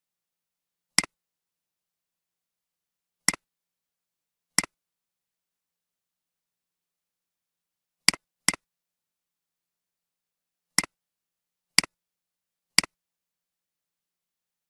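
Eight computer mouse clicks at uneven intervals, each a sharp double tick of the button going down and coming back up.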